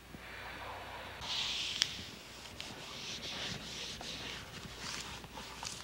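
Hands rubbing and pressing a sheet of paper laid over paint to take a print: a soft papery rustle, loudest about a second in, with a few small clicks.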